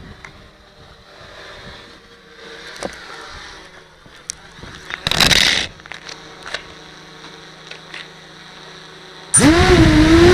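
Near the end, an FPV racing quadcopter's brushless motors spin up with a sudden loud whine that rises in pitch, then holds steady, heard from the camera on the drone itself. Before that there is faint background with a few sharp clicks and a brief loud rush of noise about five seconds in.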